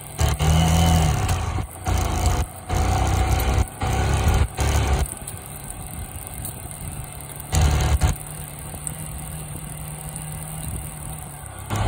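Motorcycle engine running during a ride, heard from the rider's seat. Loud rumbling cuts in and out for the first five seconds and once more about eight seconds in; otherwise the engine runs steadier and quieter.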